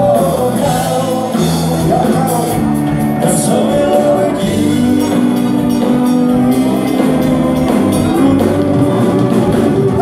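A live dance band playing a song, with a singer.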